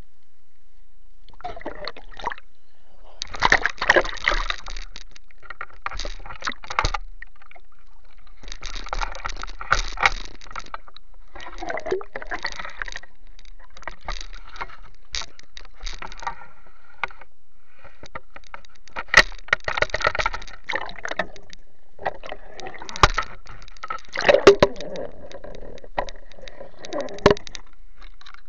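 Water sloshing and splashing around a speargun-mounted action camera at the sea surface, in irregular bursts with short quiet gaps.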